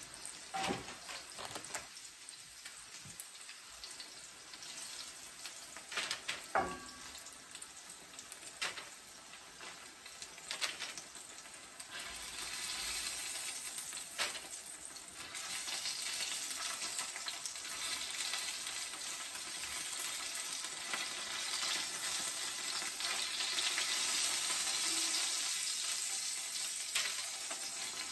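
Chicken pieces frying in hot oil in a skillet: a steady sizzle that grows louder about halfway through as more pieces go into the pan. A few sharp clicks of metal tongs against the pan and plate.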